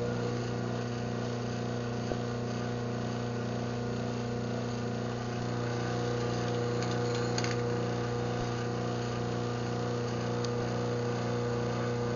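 Craftsman half-horsepower chain-drive garage door opener running through an opening cycle: a steady motor hum with chain-drive rattle that stops abruptly at the end as the door reaches its limit.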